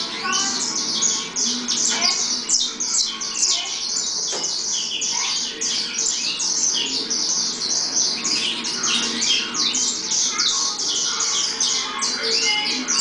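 Many caged saffron finches chirping and singing together: a dense, continuous chatter of short, high calls.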